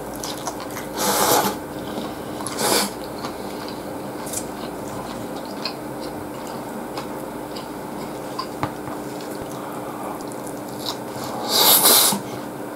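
Close-up eating sounds: a mouthful of breaded pork cutlet and rice being chewed, with small clicks of chopsticks on the plate. Three short, louder noisy bursts come about a second in, near three seconds, and just before the end.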